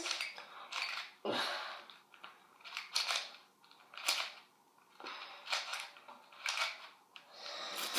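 Plastic layers of a ShengShou mini 7x7 puzzle cube being turned by hand: short, irregular clacks about once a second.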